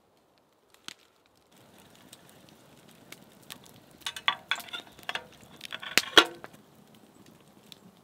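Metal camp cookware clinking: a steel cup knocking against a pot and its wire bail handles. The clinks come in two bursts of ringing knocks a little past the middle.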